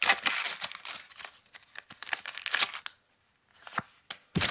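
Foil Pokémon booster pack wrapper being torn open and crinkled by hand, in crackly bursts with scattered sharp crinkle clicks.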